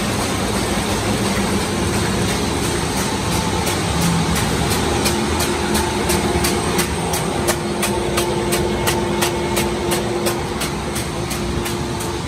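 Müller Martini Tempo saddle-stitching line running at production speed. It makes a steady mechanical din with a light hum, and a regular sharp clacking about three times a second as the printed sheets are carried along the chain and conveyor.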